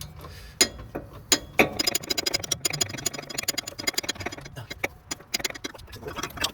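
A few sharp metal clicks, then a run of rapid, even ratchet clicks lasting about three and a half seconds: a socket wrench ratcheting on a car's lower shock bolt.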